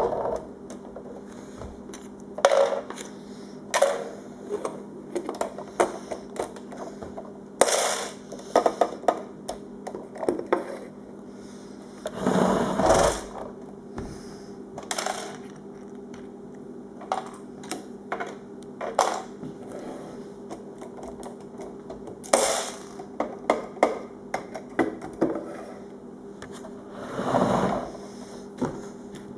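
Plastic Lego pieces clicking, tapping and knocking on a wooden surface as a hand-built Lego garbage truck is pushed about and its brick bins are handled, with two longer rolling, scraping sounds, one around the middle and one near the end. A steady low hum runs underneath.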